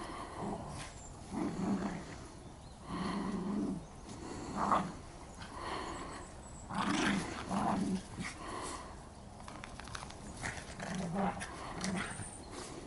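Two small dogs play-fighting, with short, low play growls in repeated bouts every second or so.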